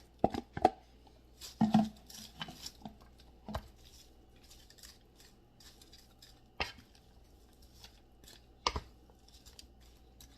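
A spoon clinking and knocking against a dish while vegetables are mixed into pasta and chicken: a few sharp clinks close together in the first two seconds, then single knocks spaced several seconds apart.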